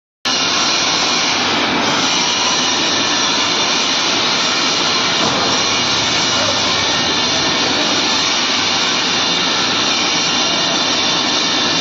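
Wood-fired furnace burning logs hard in its firebox, a loud steady rushing roar.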